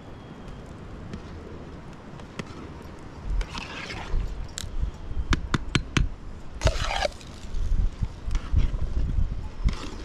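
A metal ladle stirring a pot of soup, with sharp clinks against the pot and two longer scrapes, about a third of the way in and again past the middle. A low rumble rises under it from about three seconds in.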